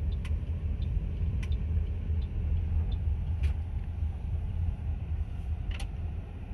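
Steady low rumble of a Toyota Corolla heard from inside its cabin, with a few faint light clicks.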